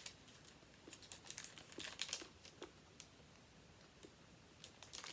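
Faint, scattered crinkles and clicks of a chocolate bar's wrapper being handled.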